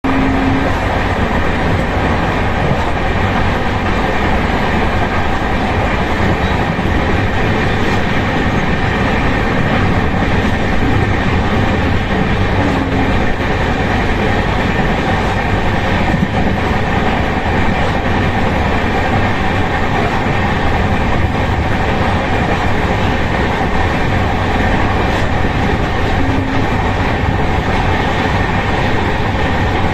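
Kathgodam Shatabdi Express passenger coach running at speed along the track: a loud, steady rumble and rush of wheels on rail.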